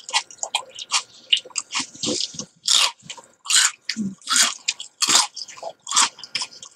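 Wet mouth noises close to the microphone: an irregular run of lip smacks and tongue clicks, broken by several short hissing breaths.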